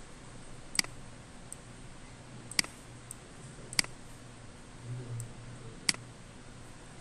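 Computer mouse button clicking: four sharp clicks about one to two seconds apart, with a few fainter ticks between them, over a faint low hum.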